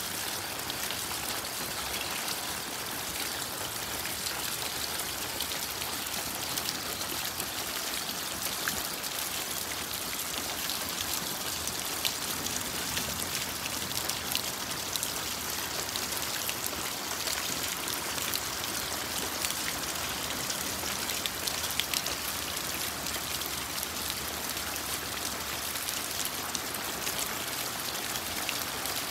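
Steady rain, a constant hiss with many small drip ticks, with rainwater running down a cup-style rain chain and splashing into a basin below.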